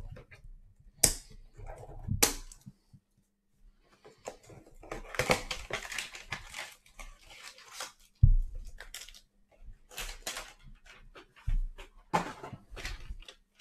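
Cellophane wrap crinkling and cardboard hanger boxes of trading cards being torn open by hand, in irregular bursts with the busiest stretch a few seconds in. Two dull thumps partway through, the first the loudest sound, as things are set down on the table.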